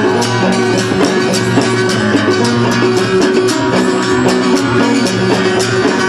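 Instrumental break of a small band playing a sea-shanty tune: guitar over changing low notes, with drums striking a steady beat.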